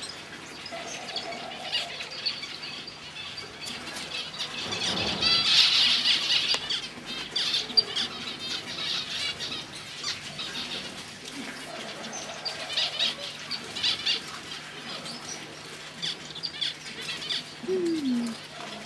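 Small exotic finches in an aviary, zebra finches among them, calling and chirping with many short high calls, and a louder flurry of calls and wing flutter about five seconds in.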